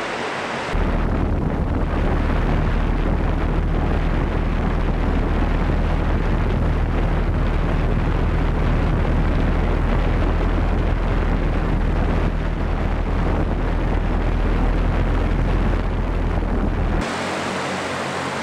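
Volocopter VC200's many small electric rotors running as it hovers: a steady hum over a rushing hiss, with a heavy rumble of downwash buffeting the microphone. The rumble starts abruptly about a second in and cuts off abruptly near the end, leaving a lighter steady rotor hiss.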